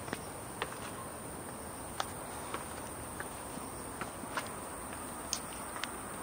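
Light footsteps climbing granite stone steps, about nine soft scattered taps over a steady outdoor background hiss.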